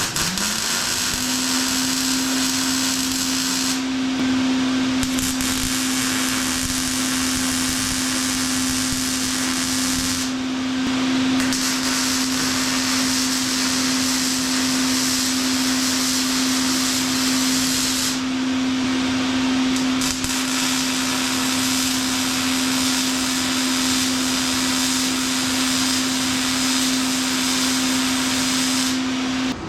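Steel being MIG-welded at a turned-up setting for thicker-gauge metal: a steady crackling arc hiss that breaks off briefly between beads, over a steady motor hum that spins up in the first second and runs until near the end.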